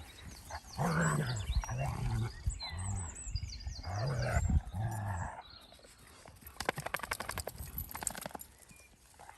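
Dalmatian giving a run of low, drawn-out growling grumbles, one after another over several seconds, with faint birdsong above. After that comes a couple of seconds of rapid clicking and scuffling.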